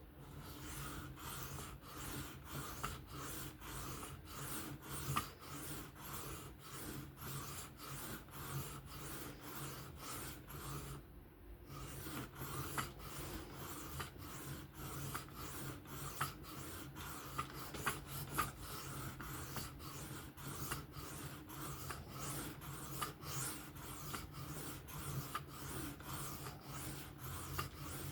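Knife blade stroked back and forth across a 600-grit sharpening plate in freehand sharpening: a steady run of rasping strokes, about two a second, with a short pause about eleven seconds in.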